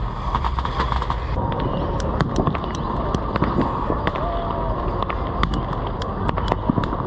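Many sharp pops and cracks of fireworks and firecrackers going off at irregular intervals, over a steady low background rumble.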